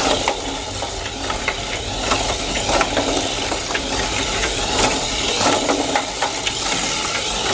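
Tamiya Mini 4WD car with an Atomic-Tuned 2 motor running laps on a plastic track: a steady whir from the motor and gears with quick irregular clicks and clatters as the car strikes the track walls and joints.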